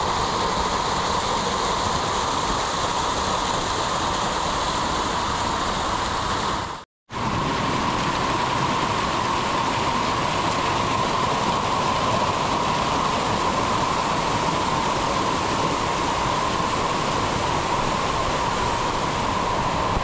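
Steady rush of a waterfall, cutting out completely for a moment about seven seconds in.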